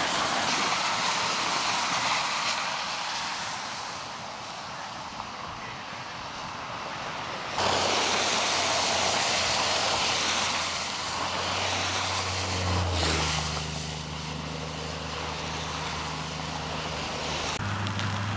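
Steady hiss of traffic on a wet, icy highway. About halfway through, a low steady engine hum from an idling vehicle joins it.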